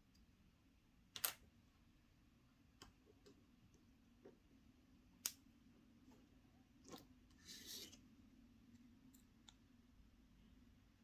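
Quiet handling sounds from unboxing chocolate surprise eggs: a few sharp plastic clicks, the loudest about a second in and about five seconds in, and a short crinkly rustle near the end.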